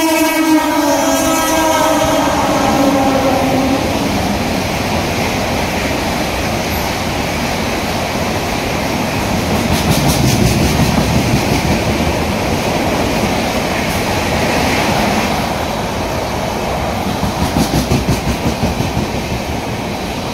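Passenger train running through a station at speed. A train horn sounds at the start and fades out within the first few seconds. Then the coaches pass with a steady rumble and runs of clickety-clack from the wheels over the rail joints, about ten seconds in and again near the end.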